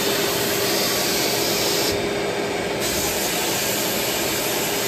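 Sandblaster blasting abrasive with compressed air to strip rust from brake caliper anchor brackets: a loud, steady hiss that thins briefly in its highest part about two seconds in.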